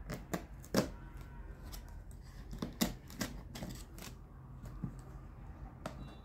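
Utility knife slicing along packing tape on a cardboard box, with irregular scraping clicks and taps as the blade catches and the box is handled.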